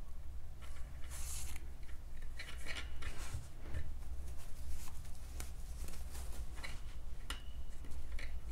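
Short, irregular rustling and scraping of acrylic yarn and crocheted pieces being handled as a petal is sewn to a metal ring with a darning needle, over a steady low hum.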